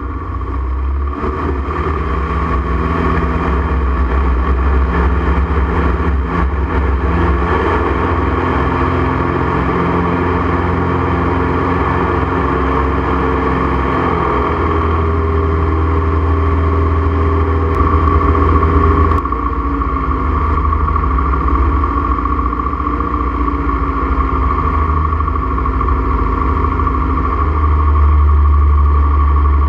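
Bearhawk light aircraft's piston engine and propeller running steadily. The engine note shifts about two-thirds of the way through and grows louder near the end.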